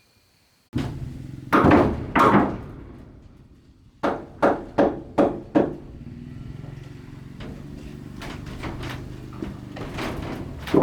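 Blows of a hand tool on bamboo: two heavy knocks, then a quick run of about five strikes roughly three a second, and more knocks near the end.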